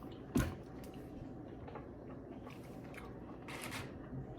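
Quiet room with one sharp click about half a second in, then a soft rustle near the end.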